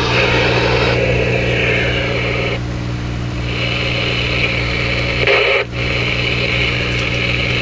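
Hiss and static from a ten-meter radio's speaker over a steady low hum, the noise shifting a few times, with a brief dropout near the end.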